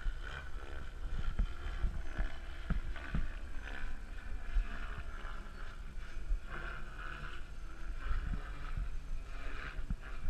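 KDS Agile 7.2 radio-controlled helicopter flying high overhead, its rotor and motor sound swelling and fading as it manoeuvres, with low rumbles of wind on the microphone.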